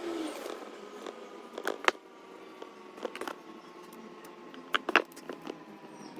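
Parts or tools being handled during a starter motor overhaul: a few sharp clicks and knocks in three small clusters, over a faint steady hum that sinks slowly in pitch.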